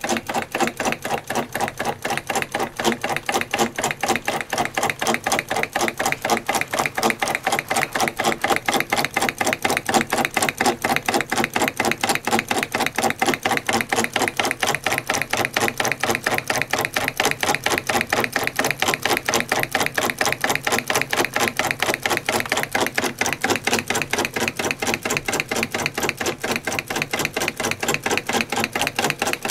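Single-cylinder solenoid engine running: a cam-driven timing switch energises the solenoid on each power stroke, and its pull on the crankshaft gives a rapid, even clacking.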